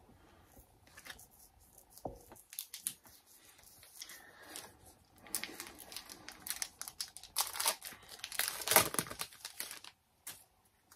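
Foil wrapper of a Pokémon card booster pack crinkling and tearing as it is ripped open: a dense run of crackles that builds from about two seconds in, is loudest near the end, and stops suddenly.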